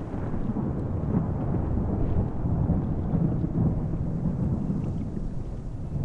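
Airbus helicopter's rotor and engine making a deep, steady rumble that swells about two seconds in, then slowly eases.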